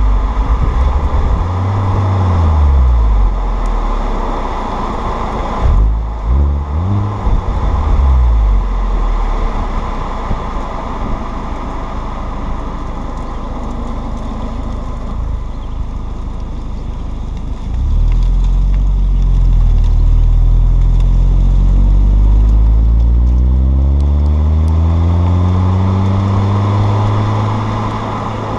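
Audi A4 B6's exhaust through a Borla 140100 cat-back system, the engine revving up and down. There are a few quick rev blips about six to eight seconds in, then a long, slow climb in revs over the last ten seconds.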